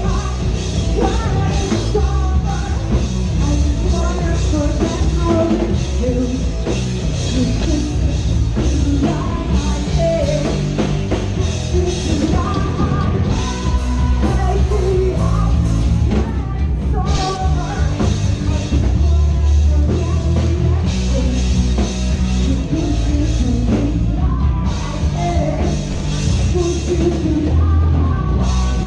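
Live rock band playing loudly, with a drum kit and a singer singing over the band.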